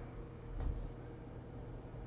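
Quiet room tone with a steady faint hum and one soft knock about half a second in.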